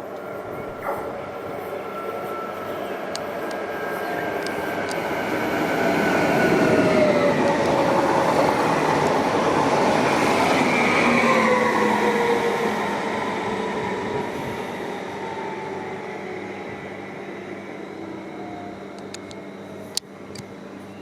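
Electric train passing through a station: its running noise builds to a peak mid-way and then fades, with whining tones that slide down in pitch as it goes by. A single sharp click near the end.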